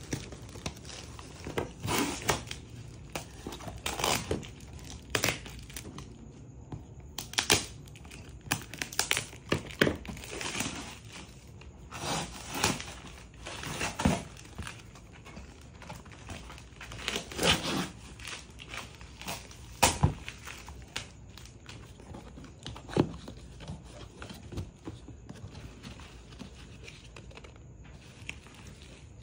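Scissors cutting the packing tape on a cardboard box, then the box being handled and its flaps pulled open. Cardboard scrapes, rips and crinkles come in irregular bursts, fewer toward the end.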